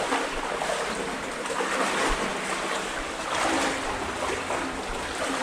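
Legs wading through crotch-deep water in a flooded tunnel: a continuous sloshing and swishing that swells and eases with each stride.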